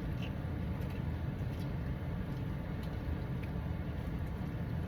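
Steady low rumble of a car cabin with the engine running and the heater on.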